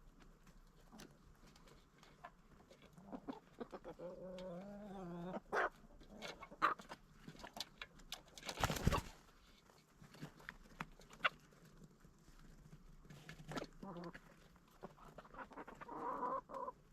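Chickens clucking and calling: a drawn-out, wavering call about four seconds in and a higher one near the end. Scattered short taps run between the calls, and a short loud rushing sound comes about halfway through.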